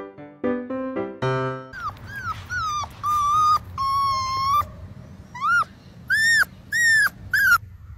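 A white puppy whining in high-pitched cries that rise and fall: two held ones of about half a second in the middle, then four short arched ones near the end. Piano-like background music plays for about the first second and a half.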